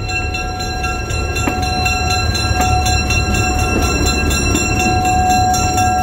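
Diesel locomotive running as the train rolls slowly along the rails: a steady low rumble with several steady high whining tones over it and a couple of faint clicks from the wheels. It grows louder as it passes close by another locomotive standing on the next track.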